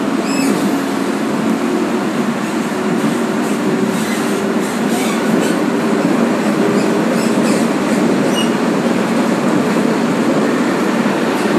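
Tram running along its track, heard from inside the car: a steady rumble and hum of wheels on rails, with a few faint clicks.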